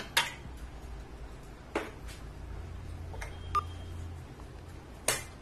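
Sharp clicks and clinks of metal parts of a BGA rework station being handled: its nozzles and a reballing stencil knocked against the heater plate and frame. About half a dozen, loudest just after the start and near the end, one with a brief ring. A low steady hum runs underneath.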